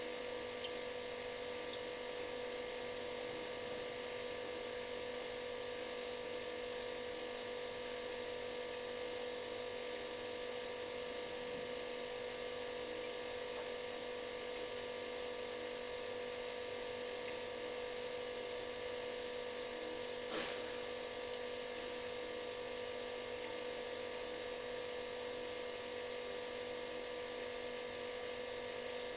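Refrigerator running: a steady hum made of several held tones, the strongest a mid-pitched one, over a soft hiss. A brief faint click comes once, about twenty seconds in.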